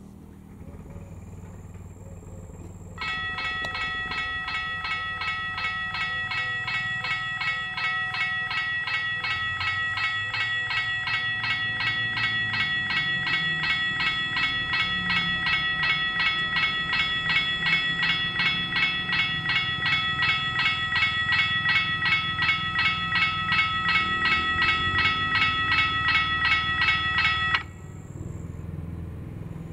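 SUELE electromechanical level-crossing bells ringing in rapid, even strikes. They start a few seconds in and cut off suddenly near the end once the barriers are down: the crossing closing for an approaching train.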